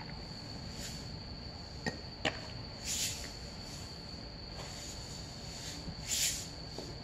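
Insects trilling steadily as a continuous high-pitched tone. A couple of faint clicks come about two seconds in, and two short hissing bursts about three and six seconds in.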